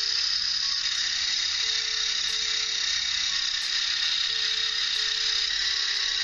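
Small electric motor driving the plastic gears, pulleys and driveshaft of a scale-model truck drivetrain: a steady high-pitched whirring.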